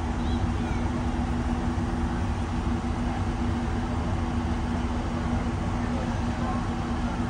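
A vehicle engine running steadily, a low even hum with no change in speed.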